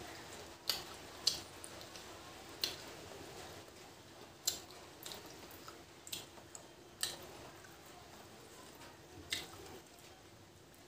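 Close-up eating sounds of rice and curry eaten by hand: wet mouth clicks and chewing, with fingers squishing rice on a steel plate. Sharp clicks come at irregular gaps of about one to two seconds.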